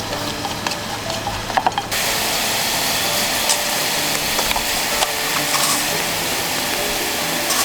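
Food frying in a pan: a steady sizzling hiss, louder from about two seconds in, with scattered light clicks and knocks.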